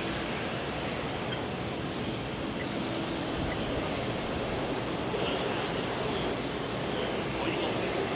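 Airbus A321neo jet engines, a steady rushing noise that grows slightly louder over the last few seconds, mixed with wind on the microphone.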